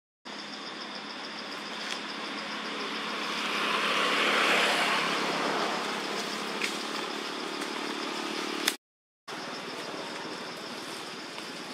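A vehicle passing by, its noise swelling to a peak about halfway through and then fading, over steady high insect trilling. The sound drops out completely for a moment at the start and again about nine seconds in.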